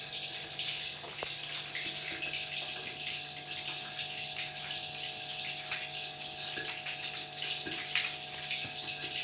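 Steady hiss with faint crackles over a low hum, and one short sharp click about eight seconds in.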